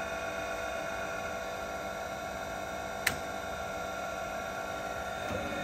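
Bemato BMT-1545-AH surface grinder running, a steady hum with several steady tones from its motors. A single sharp click comes about three seconds in, and the running sound grows a little near the end.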